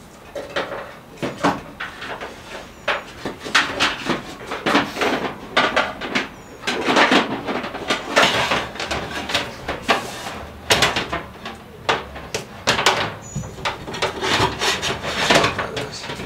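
Irregular clicks, knocks and rustling as corrugated plastic wire loom and wiring are handled and pushed into the van's sheet-metal frame rail.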